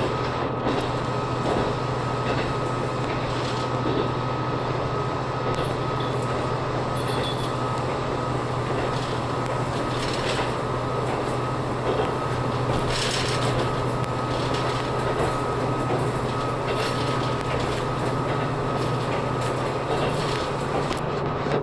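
Diesel railcar running along the line, heard from inside the car: a steady low engine drone over an even rumble of wheels on rail.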